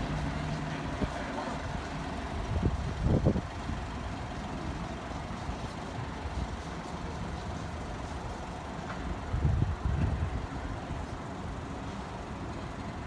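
Vehicle engine noise at a level crossing: a low engine hum fades out in the first second, over steady traffic noise. Two louder low rumbles pass, about three seconds in and about ten seconds in.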